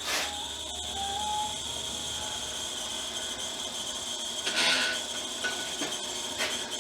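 The small electric motor of a Stripmeister E250 wire stripper running with a steady high whine. About four and a half seconds in there is a short scrape, the wire being worked through the stripper.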